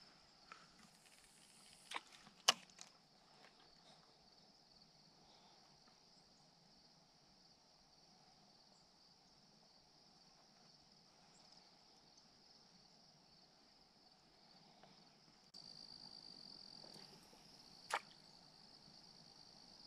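Near-silent evening quiet filled with insects chirping in a steady, high, even trill, louder from about three-quarters of the way through. A few sharp clicks come about two seconds in, and another near the end.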